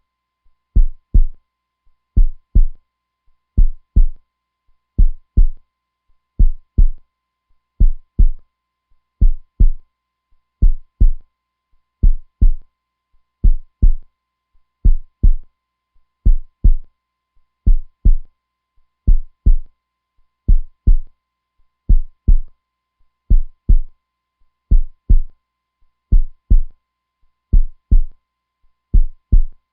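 Heartbeat: a steady, even lub-dub double thump, deep and low, repeating about every second and a half.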